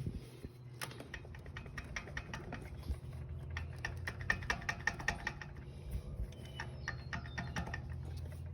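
Rapid, irregular light clicks and knocks of metal parts being handled as a new electric starter motor is worked into the engine case of a 2005 Honda Rancher 350 ATV, over a steady low hum.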